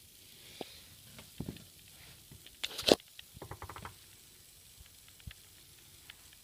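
Handling noise: scattered light clicks, a brief crackling rustle just before three seconds in, then a quick run of small ticks.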